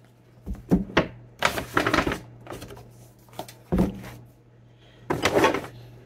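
Paper grocery bag rustling and cardboard boxes being handled and set down on a countertop, with a few sharp knocks and two longer bursts of rustling. A steady low hum runs underneath.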